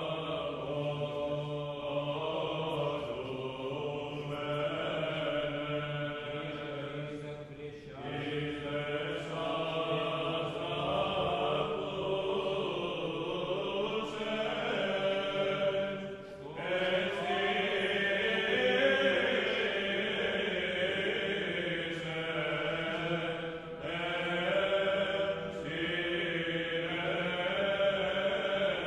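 Background music of slow vocal chanting, with several voices holding long notes together. It breaks briefly between phrases about 8, 16 and 23 seconds in.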